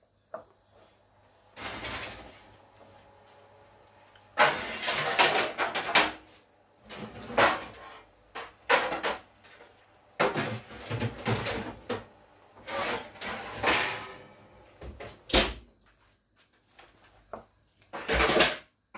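A small ceramic bowl knocked and scraped about on a kitchen worktop, in irregular bursts of a second or two with short pauses between.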